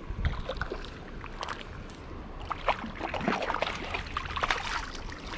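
Shallow creek water splashing and sloshing in quick irregular bursts, busiest in the second half, as a just-caught rainbow trout is handled on the line, over the stream's steady flow.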